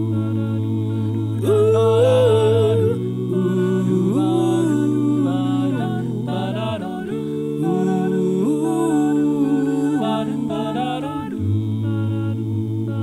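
Multitracked a cappella vocals from one man's voice layered in several parts, sung without words: a held low bass note under sustained chords, with a moving melody on top. The chord changes about every three to four seconds.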